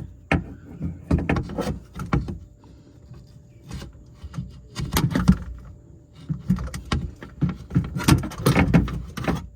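Clunks, knocks, scrapes and rattles of a car window regulator's metal track being worked into place inside a door, coming in bunches with quieter gaps between.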